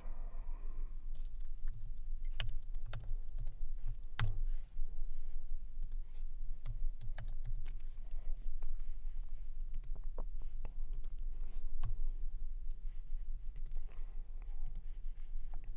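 Typing on a computer keyboard: irregular keystrokes, with a steady low hum underneath.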